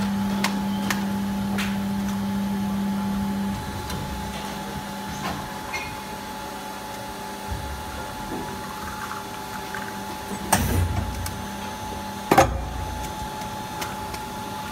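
Plastic injection moulding machine cycling a 16-cavity urine cup mould. A steady low hum drops away a few seconds in, leaving a faint steady whine and light ticks. Two loud clunks come about ten and twelve seconds in as the mould opens.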